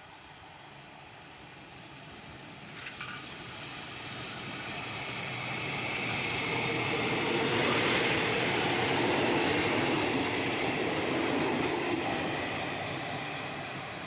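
Passenger train rolling past at close range as it pulls in to stop at a station: wheels running on the rails, growing louder to a peak about halfway through as the carriages go by, then easing as the train moves away.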